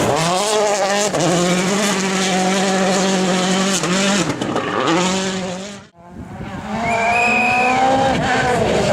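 World Rally cars' turbocharged engines at high revs. The pitch dips briefly twice around four to five seconds in, as with gear changes. The sound cuts out abruptly near six seconds, and then a second car comes in at high revs with a high-pitched whine over the engine.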